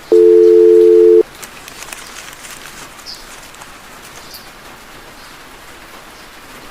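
A loud electronic tone of several steady pitches sounds for about a second at the start and cuts off suddenly, then steady rain falls.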